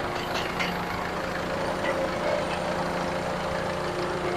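A heavy engine running steadily, with a few light clicks in the first second.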